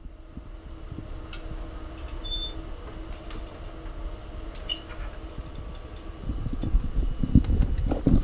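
Pet ferret snoring in its sleep close to the microphone, with short high squeaky whistles about two seconds in. Louder low rumbling thumps come in over the last couple of seconds.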